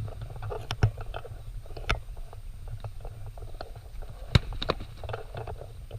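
Sword blows in armoured combat practice: a few sharp knocks of weapons landing on armour and shields, the loudest about a second in and at about four and a half seconds, each followed closely by another, over a low steady rumble.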